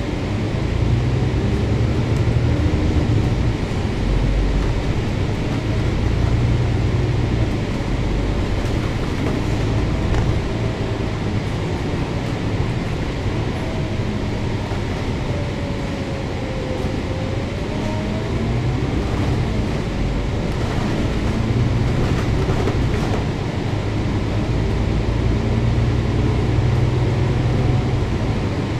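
Volvo B9TL double-decker bus's six-cylinder diesel engine pulling away and running on the move, heard from on board. The engine note swells and eases several times, with a faint whine that glides down and back up in pitch.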